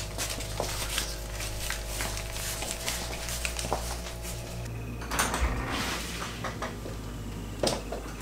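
Scattered light knocks and clicks over a steady low hum, with a door being opened near the end.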